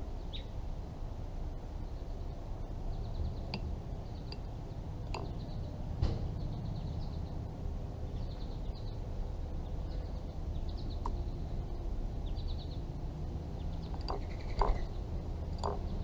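American robin's beak pecking at a terracotta dish of live mealworms: scattered sharp clicks, the loudest about six seconds in and another near the end. Short high chirps from other birds repeat over a steady low outdoor rumble.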